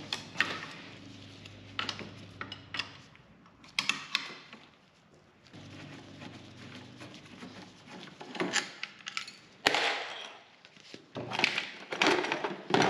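Socket wrench working the 13 mm bolts of a racing kart's steering wheel: irregular ratcheting clicks and metal clinks, with a few louder knocks in the second half.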